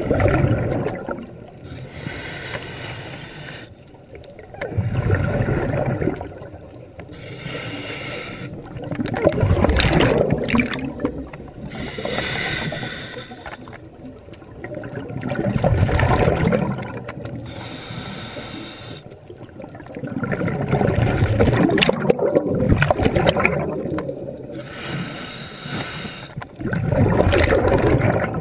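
Scuba diver breathing through a regulator underwater: bubbling bursts of exhaled air about every five seconds, with quieter stretches between.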